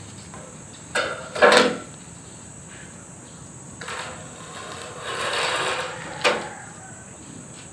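A few sharp knocks and clatters of work noise, the loudest about a second and a half in and another near the end, with a longer scraping rush around five seconds, over steady cricket chirring.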